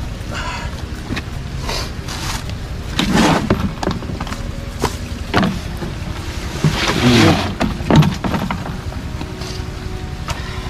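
Handling noises as a large plastic trough is lifted, tipped and set down on dirt ground: a few irregular scrapes and knocks, the loudest about three seconds in and again around seven to eight seconds in.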